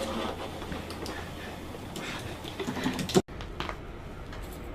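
Quiet room with scattered light clicks and rustling of movement. A sharper click comes a little past three seconds in, then the sound cuts off abruptly and a different room tone takes over.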